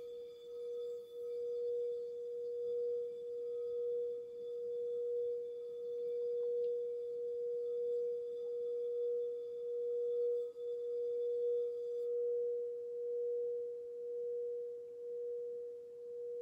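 Clear quartz crystal singing bowl sung by circling its rim with a wand: one steady pure tone with slow swells in loudness. Its fainter higher overtones drop away about twelve seconds in, leaving the main tone.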